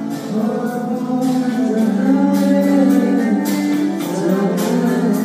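A man singing into a microphone over a loud backing track, holding long notes that slide between pitches, with a steady beat under the song.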